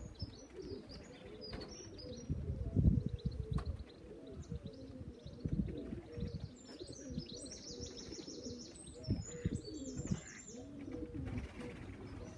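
Pigeons cooing repeatedly close by. A small bird chirps in quick high-pitched runs through the middle stretch.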